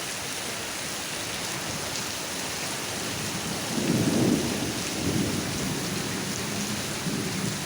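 Heavy rain falling steadily, with a louder low rumble about four seconds in and a weaker one a second later.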